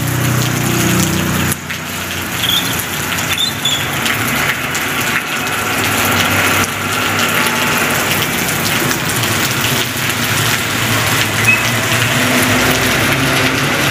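Heavy rain pouring down in a steady hiss, with a dump truck's diesel engine running low underneath, plainest in the first second or so and again near the end.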